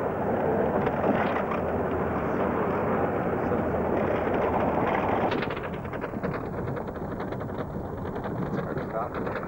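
Wind and road noise of a moving vehicle heard from inside, with wind rushing over the camcorder microphone; the noise eases a little just past halfway.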